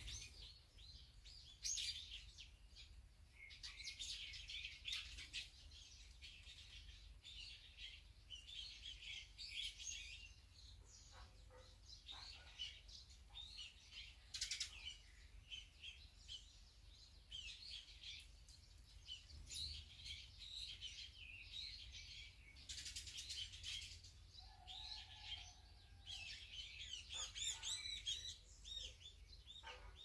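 Eurasian tree sparrows chirping: many short, high chirps throughout, busiest a few seconds before the end.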